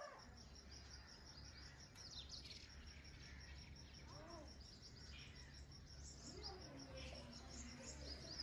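Faint outdoor ambience: small birds chirping now and then over a steady, pulsing high insect trill and a low steady hum.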